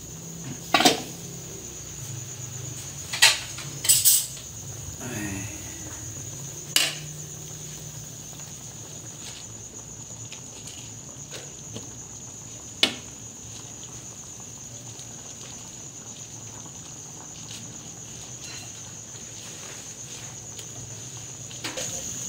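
Metal pot lid and aluminium pan clinking as the lid comes off and vegetables are put in: sharp clinks about a second in, twice around three to four seconds, near seven seconds and once near thirteen seconds, over a steady high-pitched whine.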